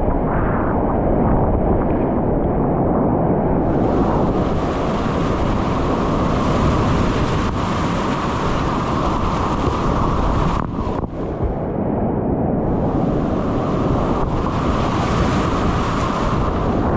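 Whitewater rapids rushing loudly all around a kayak running through them, with water splashing over the boat and the camera. The sound goes briefly muffled about eleven seconds in.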